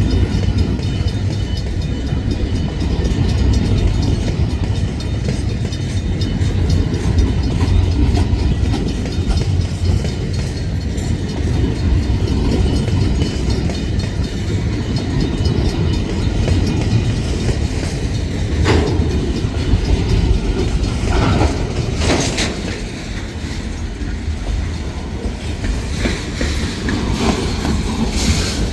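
Escanaba & Lake Superior freight train rolling past on the rails with a steady low rumble and wheel clatter. A few sharper clanks come about two-thirds of the way through.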